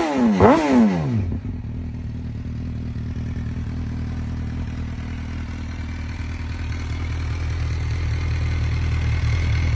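MV Agusta F4 1000 Corse's inline-four engine, blipped once more right at the start, then settling to a steady idle through its four-pipe underseat exhaust.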